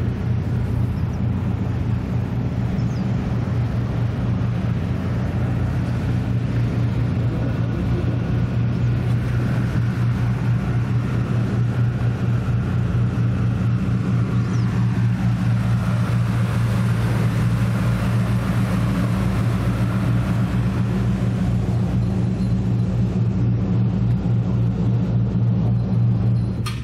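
A steady low engine drone with a constant hum; a faint tone slides down and back up about halfway through.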